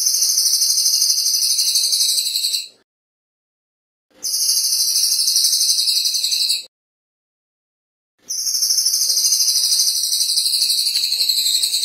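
Crested jay, the bird kept as 'cililin', giving fast, high rattling calls. There are three long bursts of about two to four seconds each, separated by short silent pauses.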